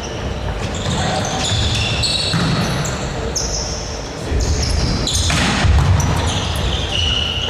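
Indoor court game in a gym: sneakers squeaking on the floor again and again, a ball thudding, and players calling out, echoing in the hall.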